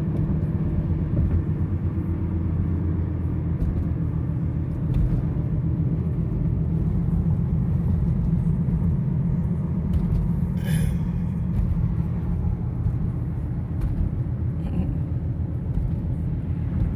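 Steady low rumble of a car driving, engine and tyre noise heard from inside the cabin, with one brief sharp sound about eleven seconds in.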